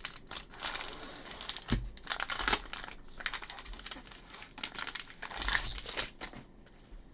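Crinkling of trading-card pack wrappers being handled, coming and going irregularly and dying down near the end.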